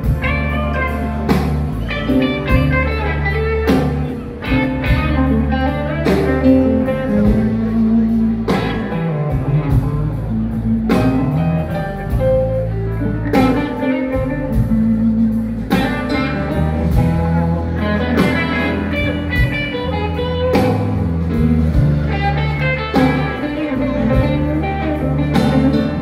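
Live blues band playing through a stage PA: electric guitar over bass and drums, with a steady beat.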